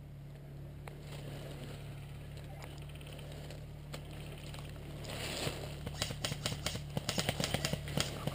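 Quiet outdoor hum, then from about halfway in a run of irregular crackles and rustles: dry leaves and twigs crunching underfoot as someone moves through brush.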